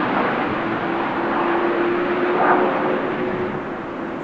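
Jet engine noise from a landing Airbus A330-200 with Pratt & Whitney PW4000 engines: a steady rush with a steady hum running through it, easing slightly near the end.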